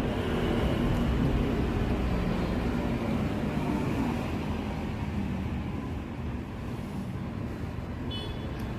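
A steady low rumble of running machinery or traffic. It swells a little over the first seconds and slowly eases after the middle.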